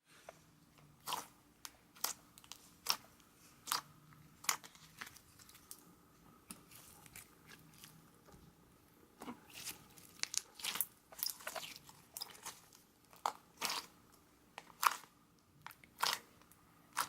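Crunchy chewing: sharp crisp crunches about a second apart at first, coming in quicker clusters in the second half.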